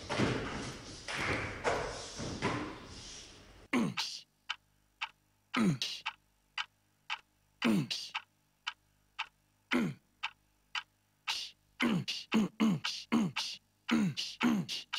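For the first few seconds, stage noise of thumps and scuffling from performers moving around a table. Then a sparse beat of percussion sets in: deep thuds that drop in pitch, each with a sharp click, spaced irregularly with silence between and coming faster near the end.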